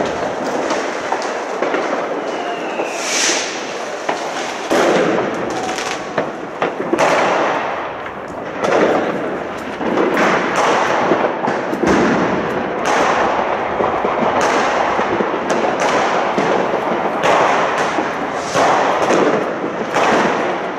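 Fireworks and firecrackers going off in a dense, continuous string of bangs and crackles, with a rising whistle about three seconds in.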